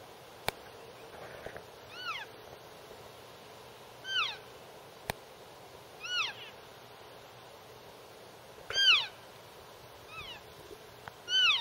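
Elk calves calling: about six short, high, mewing squeals, each falling in pitch, spaced a second or two apart. The loudest comes about two-thirds of the way through.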